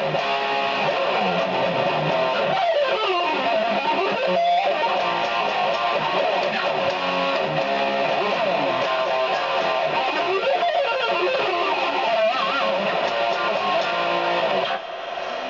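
Electric guitar played through a Maxon OD-02 overdrive pedal into a small amp with a 12-inch Celestion speaker: overdriven chords and lead lines with sliding, bending notes. Near the end the playing stops, leaving a steady amp hiss.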